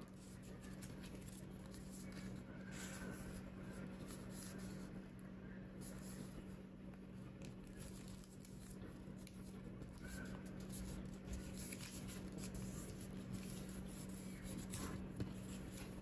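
Faint rustling and crinkling of a sheet of origami paper being folded and pinched by hand, over a steady low hum.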